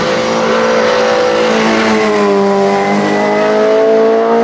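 BMW 320si WTCC touring car's 2-litre four-cylinder racing engine at high revs, accelerating hard out of a hairpin. Its pitch sags slightly about two seconds in, then climbs steadily as it pulls through the gear.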